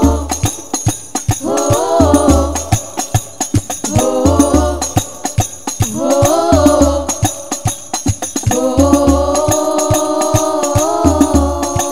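Al-Banjari sholawat: women's voices singing Arabic verses in drawn-out, ornamented phrases, with short breaks between phrases. Underneath, hand-struck rebana frame drums keep a fast, dense beat with deep bass strokes.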